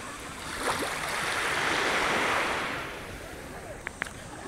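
Ocean surf washing in, a hiss that swells and fades in waves about every three seconds, with two short ticks near the end.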